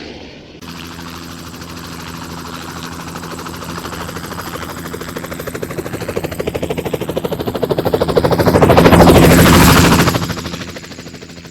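Helicopter with its rotor blades chopping fast and evenly over a steady engine hum, growing louder as it approaches, loudest about nine seconds in as it passes close, then fading away.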